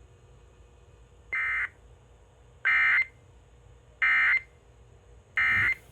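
Emergency Alert System data bursts: four short, harsh digital screeches about 1.4 seconds apart, the end-of-message code that closes an EAS broadcast. The first burst is softer than the other three.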